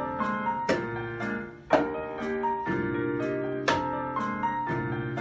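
Piano accompaniment playing a bouncy rag, with sharp hand claps landing about once a second over it.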